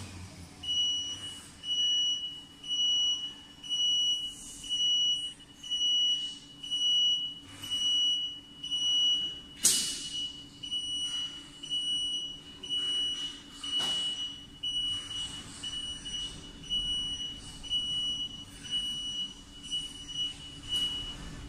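An electronic beeper sounding a long run of short, evenly spaced beeps at one high pitch, a little more than one a second. Two sharp clicks cut in, about ten and about fourteen seconds in.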